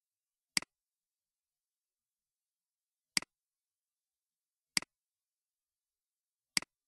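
Computer mouse clicks, four of them spaced a second or two apart, each a sharp press followed at once by a softer release, with dead silence between.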